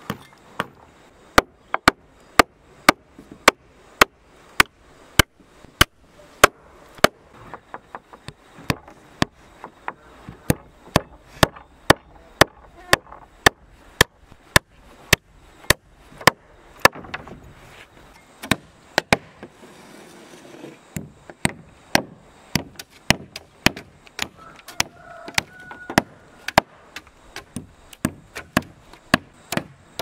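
Rough-sawn wooden floor planks struck over and over with a steel hand tool: a sharp knock about twice a second, with a brief break in the rhythm a little past halfway.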